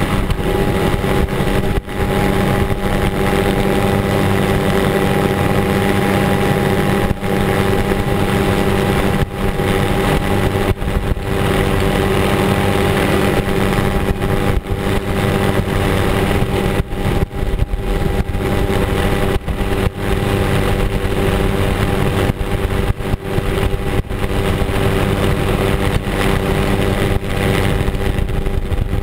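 Helicopter in flight heard from on board: steady, loud engine and rotor noise with a constant whine, broken by brief dips in level.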